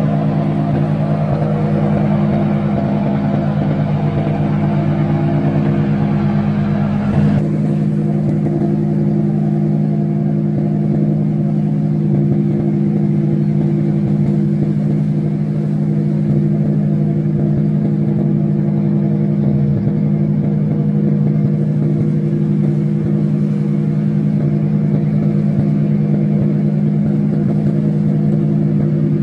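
Diesel engines of fishing boats under way, running steadily at an even low drone; about seven seconds in, the higher hiss above the drone drops away suddenly.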